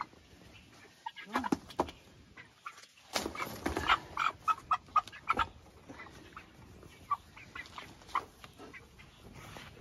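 Meat chickens clucking and squawking with short calls as they are handled and put into a wire crate, with a burst of knocks and rattles in the middle.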